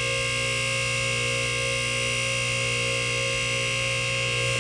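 MaxJax portable lift's electric hydraulic power unit running steadily under load as it raises a car: a constant hum with a high whine over it.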